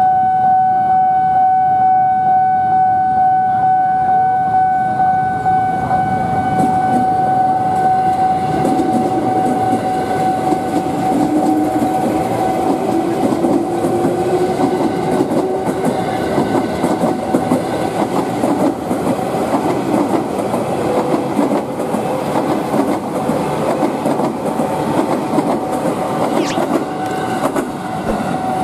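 A train passing over a level crossing, its wheels clacking on the rails, with the noise building from a few seconds in. A steady high warning tone, typical of the crossing's signal, sounds throughout.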